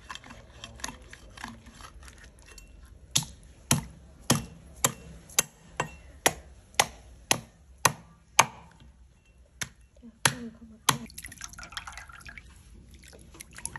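A meat cleaver chopping through a large catfish's head on a wooden chopping block: about fourteen sharp strikes at roughly two a second, with a short pause near the end of the run. After them comes water splashing as the fish pieces are rinsed by hand in a basin.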